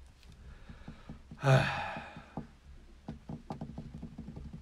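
A loud, short, breathy burst close to the microphone, like a sharp exhale or sigh, about one and a half seconds in. After it comes a run of light, quick clicks and taps.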